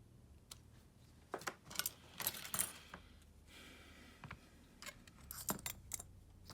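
Small tools and phone parts clicking and clattering on a work surface during hand repair of a smartphone, in scattered bursts with a short scraping hiss in the middle.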